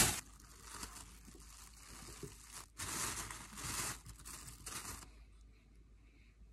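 Hands rubbing and stirring food in a stainless steel mixing bowl: a faint, uneven crinkly rustling that swells a couple of times and dies away about five seconds in.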